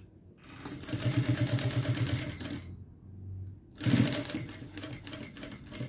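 JACK industrial sewing machine stitching a seam along a fabric edge in two runs: about two seconds of steady, rapid stitching, a short pause, then a fresh start near four seconds in that continues more quietly.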